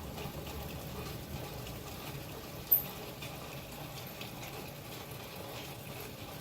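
Steady heavy rain falling with water running, and one sharp click about two and a half seconds in.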